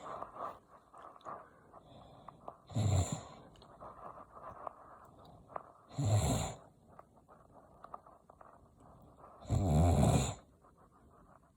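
A man snoring loudly in his sleep: three snores about three and a half seconds apart, the last one the longest.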